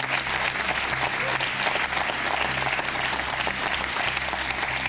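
A group of people applauding, with steady, even clapping.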